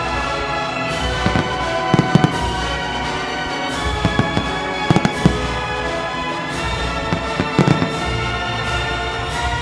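Fireworks display: aerial shells bursting in repeated sharp bangs, coming in small clusters every second or two, over steady music.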